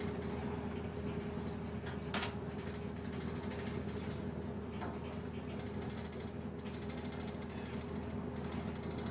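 Steady mechanical drone with a constant hum, broken by a sharp click about two seconds in and a fainter one near five seconds.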